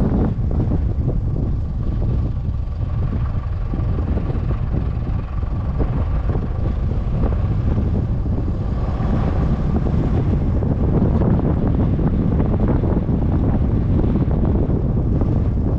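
Wind buffeting the microphone over the steady low rumble of a vehicle driving along a sandy track.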